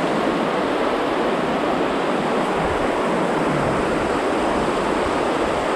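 River rapids rushing steadily over rocks: a constant, even wash of white water.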